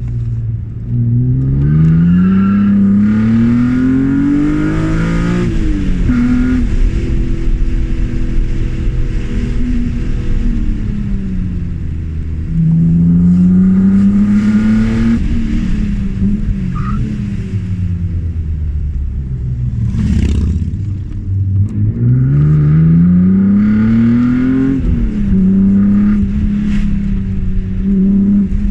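BMW E36 M3's straight-six engine accelerating hard three times, its pitch climbing steadily through each pull and dropping sharply at the shift, with steadier running and falling revs between the pulls.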